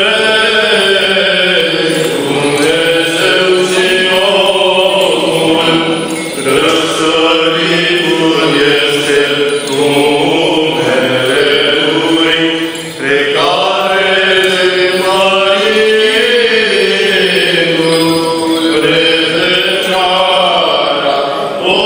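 Orthodox liturgical chant: one voice singing a slow, melodic hymn that rises and falls in long phrases, with a short breath about two-thirds of the way through.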